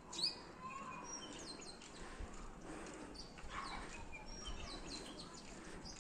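Small birds chirping and calling, with many short high notes and quick downward-sweeping whistles overlapping. One louder chirp comes just after the start.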